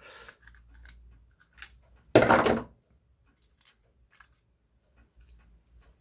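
Small metal clicks and scrapes of needle-nose pliers working the follower and spring out of an opened sashlock case, with one louder rasping noise lasting about half a second about two seconds in.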